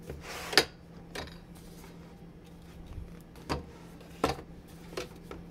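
Kitchen items being handled and set down while a refrigerator is organized: a brief rustle, then a few separate clicks and knocks of containers and jars on shelves.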